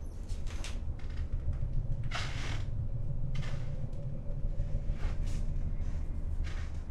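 A steady low rumble with a faint held hum above it, and about half a dozen short hissing swishes spread through.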